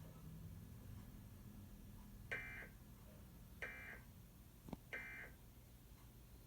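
Emergency Alert System end-of-message signal: three short digital data bursts, each about a third of a second long and about 1.3 seconds apart. This is the coded tone that closes the EAS test broadcast.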